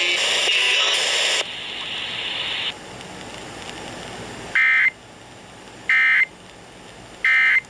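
Emergency Alert System end-of-message signal: three short, buzzy digital data bursts about a second apart over radio hiss, marking the end of a broadcast warning.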